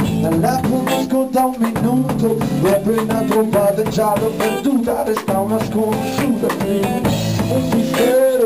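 Rock band playing live: an electric guitar through a Marshall amp, its notes bending up and down, over a drum kit.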